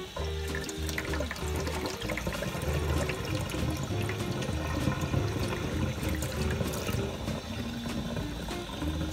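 Tap water running into a stainless steel bowl of jasmine rice as the rice is washed. Background music with steady low notes plays over it.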